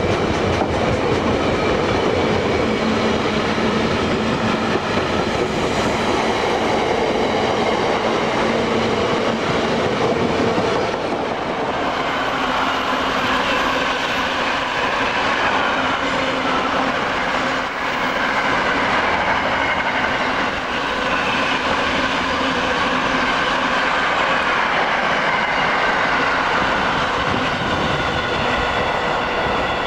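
Freight trains running past on the track: first a Freightliner train of hopper wagons, then, after a change about 11 seconds in, a long train of container wagons carrying shipping containers. Throughout there is a steady rolling noise of wagon wheels on rail.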